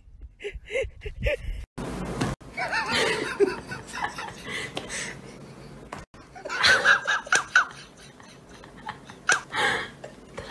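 A person's voice laughing in short repeated bursts and exclaiming, with a brief burst of noise about two seconds in.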